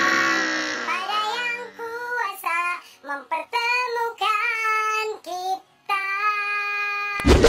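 A high-pitched, child-like singing voice sings a melody in short phrases and long held notes. Near the end comes a sudden loud thump.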